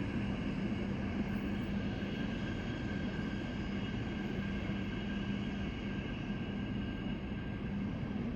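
A train at a station running steadily: a constant low hum with fainter steady whining tones above it.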